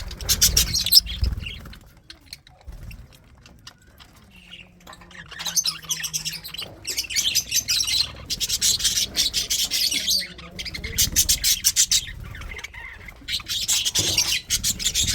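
Budgerigars chattering in bursts of rapid, high chirps, with quieter gaps between the bursts.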